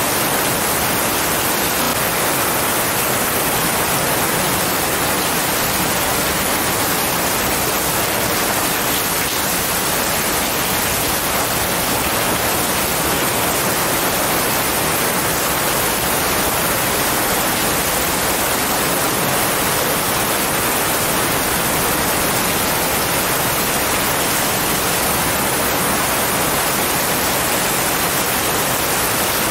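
Steady heavy rain and wind in pine trees during a storm, an even hiss that stays level throughout with no thunderclaps.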